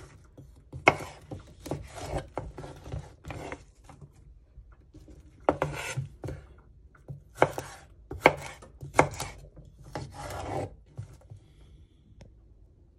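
Kitchen knife chopping broccolini stems on a wooden cutting board, with the blade also scraping across the board. It comes as a series of separate strokes, some sharp and some drawn out, and stops about eleven seconds in.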